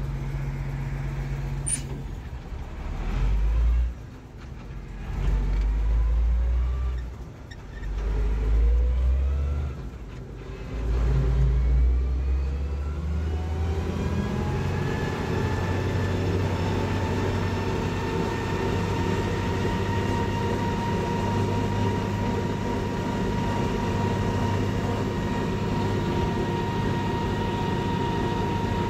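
MB-trac 1300 tractor's diesel engine heard from inside the cab, pulling up through the gears: the engine note rises four times over roughly the first thirteen seconds, dropping away briefly between rises. It then runs steadily at road speed with an even high whine.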